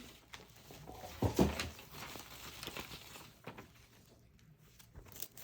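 Packaging being handled as a cardboard box is opened: light rustling and small clicks, with a soft thump a little over a second in.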